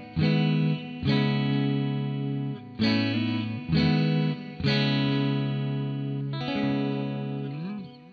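Fender Deluxe Players Stratocaster, clean tone on its neck pickup, a noiseless single coil: chords strummed about six times and left to ring, ending with a wavering bent note that fades out near the end.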